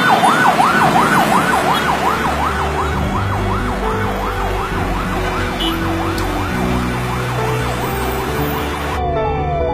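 Electronic ambulance siren in a fast yelp, sweeping rapidly up and down about two to three times a second. Near the end it cuts to a different siren with a repeated falling sweep, about one and a half a second.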